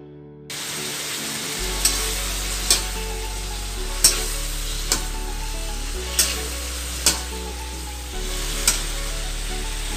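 Vegetables sizzling in a metal wok while a spatula stirs them, knocking against the pan about seven times. The sizzle starts suddenly about half a second in, with background music underneath.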